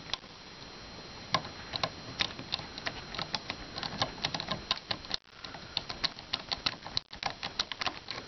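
Irregular light plastic clicks and taps from handling a Honeywell Focus Pro thermostat and its wall-plate wiring, several a second in uneven clusters.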